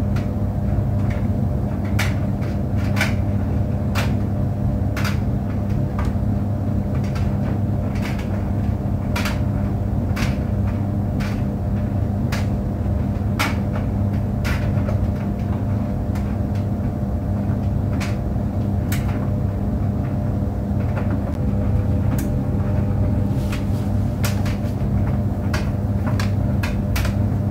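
Clothes dryer running with a steady low hum, overlaid by irregular light clicks and knocks.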